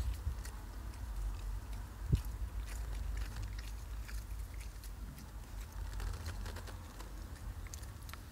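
Border Terrier tearing and chewing grass close up: a scatter of small crisp clicks and crunches, with a thump about two seconds in, over a steady low rumble.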